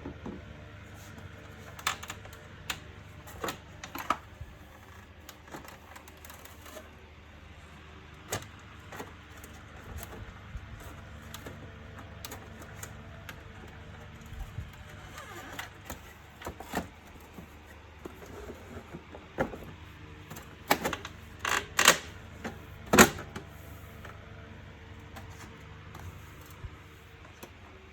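Plastic parts of a Bosch wet-and-dry vacuum cleaner being handled and fitted together: scattered clicks and knocks, with a run of sharper, louder knocks about three quarters of the way through, over a faint steady hum.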